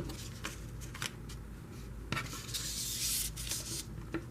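Paper and ribbon being handled on a craft table: small taps and clicks, with a brief rubbing, sliding sound a little past halfway.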